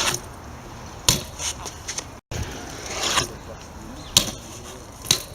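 BMX bike being ridden for trick clips: about five sharp knocks and clacks of the bike and wheels hitting the ground, with the sound cutting out briefly a little over two seconds in.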